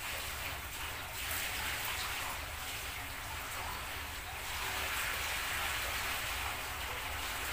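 Water pouring steadily from a plastic bucket into the water tank of an evaporative air cooler, a continuous splashing stream.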